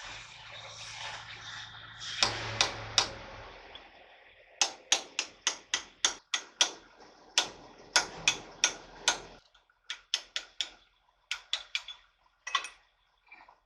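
Hammer blows on steel in quick runs of strikes, about four a second, each ringing briefly. A low steady hum underneath stops about two-thirds of the way through.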